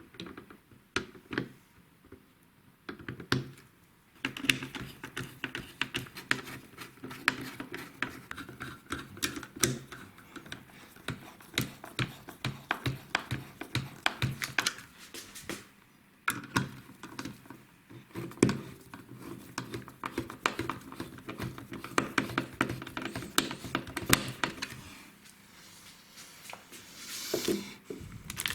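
Computer parts and packaging being handled by hand: a rapid, irregular run of clicks, taps and light knocks of hard plastic and small parts, with a faint steady hum underneath for a while.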